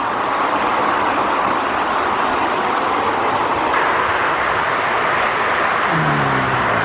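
Waterfall pouring into a pool: a steady, even rush of falling water. Near the end a short voice sound falls in pitch.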